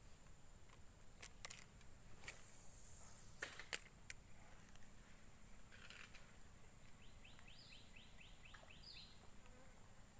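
Faint insects chirping in the waterside vegetation: a very high chirp repeating about twice a second over a steady high buzz. A few sharp clicks come in the first four seconds, and a quick run of short falling chirps about seven seconds in.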